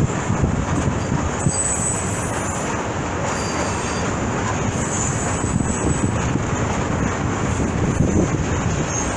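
Freight train of open and flat wagons rolling past: a steady rumble of wheels on rail, with thin high wheel squeals now and then.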